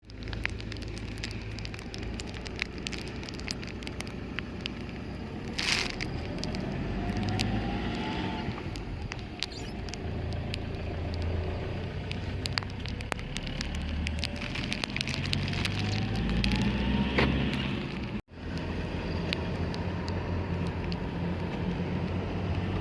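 Fishing boat's engine running with a steady low rumble and scattered clicks, with two slow rising whines, one in the first half and a longer one later.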